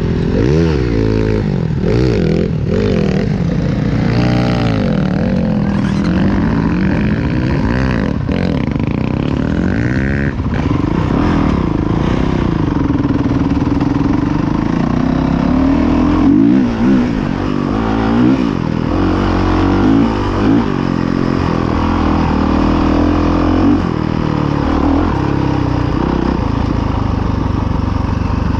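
Dirt bike engine heard from on the bike as it is ridden over rough grass, the revs rising and falling again and again with the throttle. A few sharp knocks come in the first ten seconds or so.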